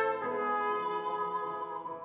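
Trumpet playing a slow melody in long held notes over piano accompaniment, moving to a new note about a quarter second in and fading toward the end.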